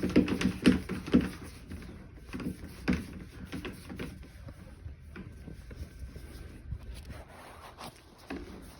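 Scattered light clicks and knocks of hands working a check valve's compression nut onto a plastic sewage discharge pipe. The clicks are densest in the first second or so, then sparser and fainter.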